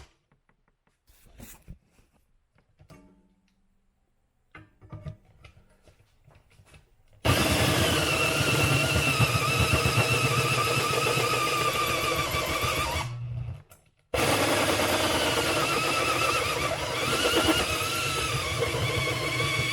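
A few faint handling clicks, then an electric drill starts about seven seconds in and runs with a steady whine, drilling holes in the terminal bracket clamped in a vise. It stops for about a second and then runs again.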